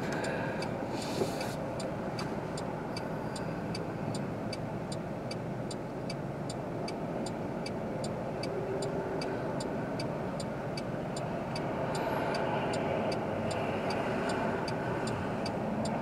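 Traffic heard from inside a car waiting at an intersection: a steady road-noise hum as vehicles cross in front, a little louder near the end as a minivan and an SUV pass close by. A light, even ticking, about three ticks a second, runs under it.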